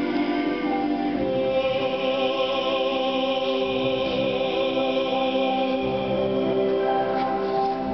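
A man singing in a classical style, holding long notes with vibrato into a microphone.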